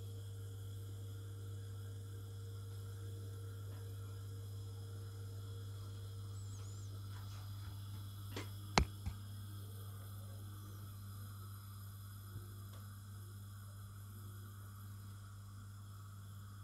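Steady low hum, with a sharp click a little under nine seconds in.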